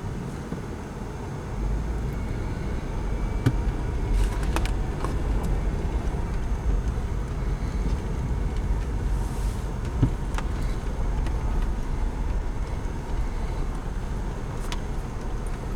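1993 Chevrolet Caprice station wagon on the move: a steady low engine and road rumble through its repaired exhaust, growing a little louder about a second and a half in, with a few light clicks and knocks.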